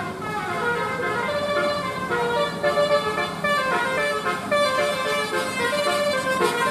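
A bus's telolet horn, a multi-tone air horn, playing a quick melody of stepped notes, a new note every fraction of a second without a pause.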